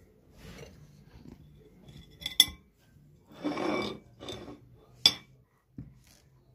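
Metal cake server clinking and scraping against a ceramic plate as a slice of cake is set down: a sharp ringing clink about two and a half seconds in, a longer scraping sound just after, and another clink about five seconds in.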